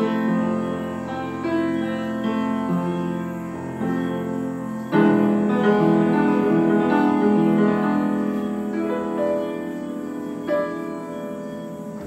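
Upright piano played by hand: sustained chords under a melody, with a loud new chord struck about five seconds in that rings and slowly fades over the following seconds.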